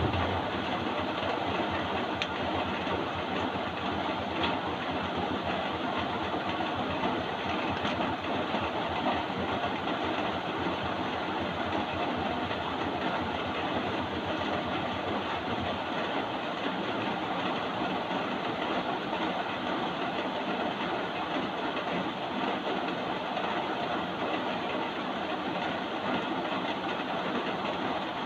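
Steady rain, an even hiss that does not let up, with a few faint ticks in the first several seconds.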